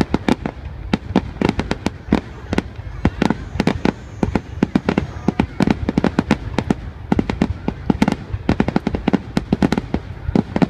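Aerial fireworks display: a rapid, irregular barrage of shell bursts, several bangs a second.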